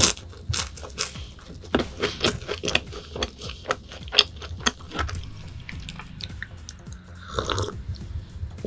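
Close-up chewing of a crisp croissant: a quick run of crunches and wet mouth sounds, thinning out toward the end.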